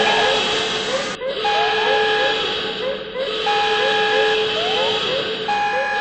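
A repeating alarm over a constant hiss. A higher two-note beep sounds for about a second every two seconds, over a steady lower tone and quick rising chirps several times a second. The hiss briefly drops away about a second in.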